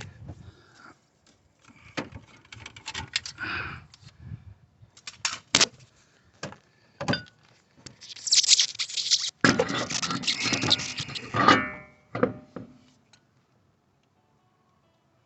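Metal clinks, knocks and scrapes as a car's front wheel is hung back on the hub and the lug nuts are put on. About eight seconds in comes a louder, continuous noisy stretch of about four seconds, then it goes quiet.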